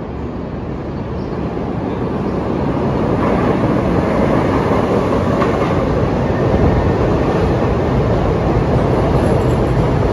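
Chicago 'L' train on the Brown Line pulling into an elevated station: the noise of its wheels on the steel rails grows louder over the first few seconds as it comes near, then holds steady and loud as the stainless-steel cars slide past alongside the platform.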